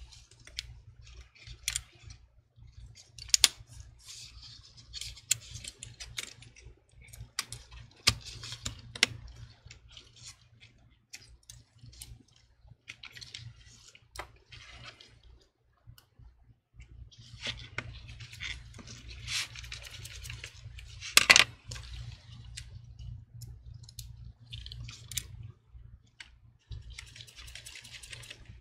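Scattered small clicks, taps and rustling as gloved hands fit a MacBook Pro logic board into its aluminium top case. One sharp knock about two-thirds of the way through is the loudest sound.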